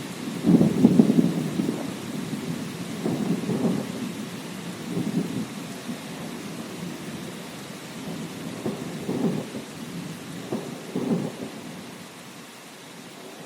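Thunder rumbling over steady rain. A loud roll of thunder comes about a second in, then weaker rolls follow and die away near the end.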